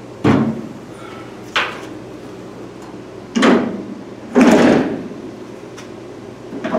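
Four separate clunks and bumps, the last and loudest about four and a half seconds in: a Triumph Spitfire's tilt-forward bonnet being lowered and handled into place.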